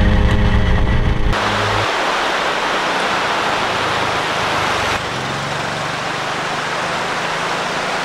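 Steady rush of a rocky mountain stream, with the small single-cylinder engine of a Honda Monkey Baja motorbike running faintly beneath it as the bike rides along the gravel road. For about the first second the bike's engine is heard from on board, louder and lower.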